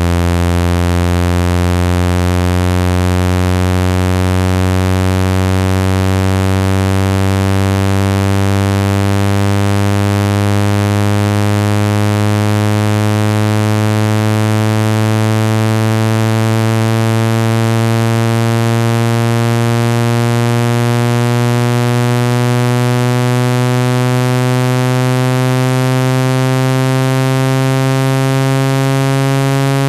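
Synthesized speaker water-ejection tone: a loud, low tone with many overtones, rising slowly and steadily in pitch. It is meant to vibrate water out of a phone speaker.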